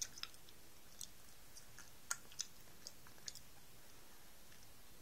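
Faint close-up chewing of a live mealworm: a scattered handful of small wet mouth clicks over a low hiss.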